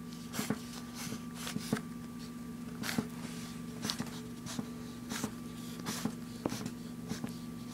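Solid paint-crayon marker scraping across paper in short, irregular strokes as letters are drawn, over a steady low hum.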